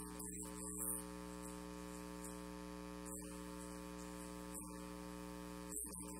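Steady electrical mains hum with a buzzy edge, unchanging throughout.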